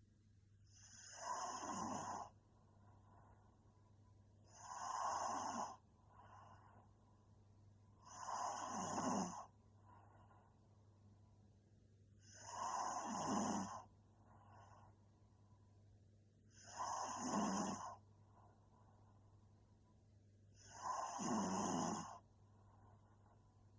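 A young woman snoring in her sleep: six snores about four seconds apart, each lasting about a second, with faint breathing between them.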